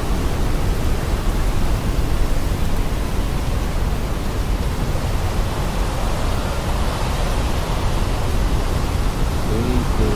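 Hurricane wind blowing hard across the microphone: a steady, loud rush of noise that is heaviest in the low end.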